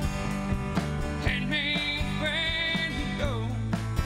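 A live band plays a song while a man sings lead into the microphone over guitar, bass and drums. He holds one long note through the middle.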